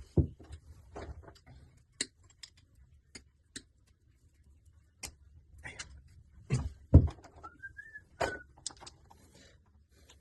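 Metal clicks and knocks of tools and tap parts being handled as a kitchen tap is put back together, with a short squeak about seven and a half seconds in.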